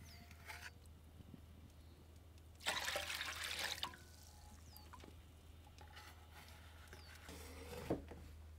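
Wood-ash lye poured from a metal ladle into a stainless steel bowl for about a second, splashing over a net of dyed cloth. Near the end, scraping as wood ash is scooped from a stove's firebox with a small metal shovel, ending in a knock.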